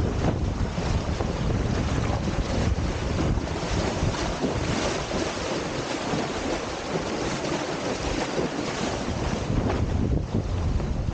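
Wind buffeting the microphone over rushing, splashing water as a Windsurfer LT sailboard skims fast through chop. The low rumble of the wind eases for a few seconds midway, then picks up again.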